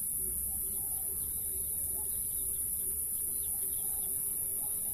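Steady high-pitched hiss with faint, short chirps in the background.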